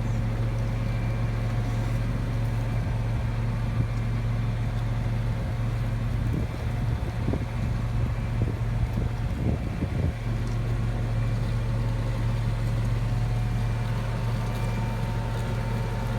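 Heavy engine of the machine pulling a mole plough, running with a steady drone. There is some uneven rumbling between about six and ten seconds in.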